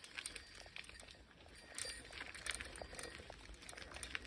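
A bicycle being ridden along a path: faint scattered light clicks and rattles over a low rumble.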